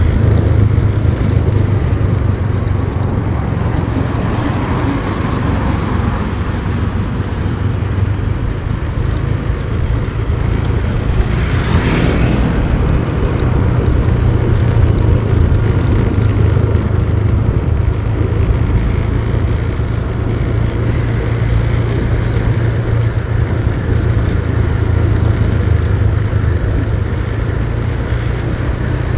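Motorbike on the move: a steady low rumble of wind buffeting the microphone over the running engine and tyre noise. A brief louder sound cuts through about twelve seconds in, followed by a short higher hiss.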